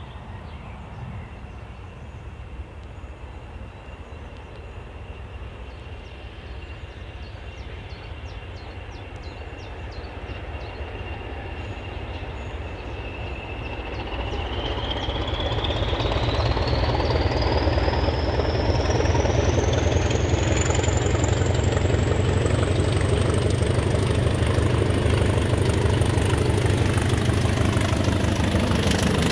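A Class 20 diesel locomotive's English Electric 8SVT engine working hard as it approaches with a train of coaches, getting steadily louder. Its high turbocharger whistle holds steady, then climbs in pitch from about halfway through as the driver opens up the power.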